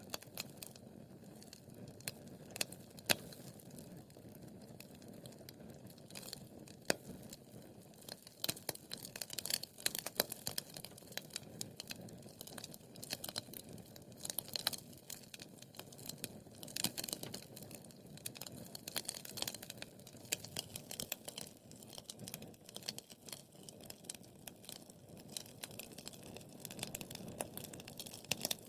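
Wood fire burning in a fireplace, crackling and popping with irregular sharp snaps over a soft steady hiss.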